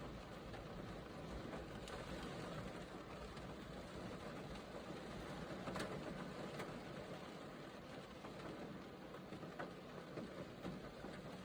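Steady rain falling, an even patter with occasional sharper drop ticks.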